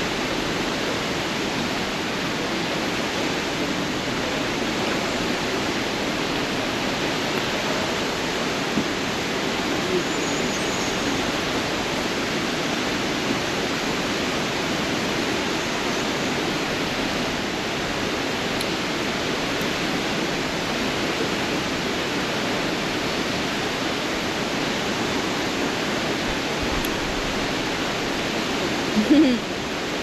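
La Fortuna waterfall's falling water, a steady rush with no break, with one short louder sound about a second before the end.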